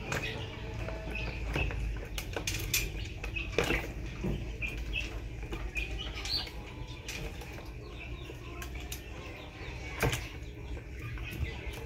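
Turtles paddling and clambering in a shallow plastic tub of water: irregular small splashes and claw scrapes and knocks on the plastic, with a couple of louder knocks. Short bird chirps sound in the background.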